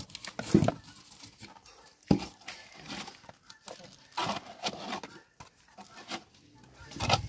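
Plastic plates and a wooden cooking stick scraping and knocking against a metal cooking pot and a plastic bucket as stiff ugali is scraped out and scooped, heard as scattered short knocks and scrapes.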